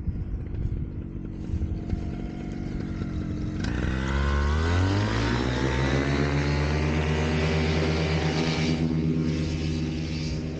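Atom 80 two-stroke paramotor engine and propeller running low under wind buffeting on the microphone, then revving up about three and a half seconds in, holding high power, and easing back a little near the end.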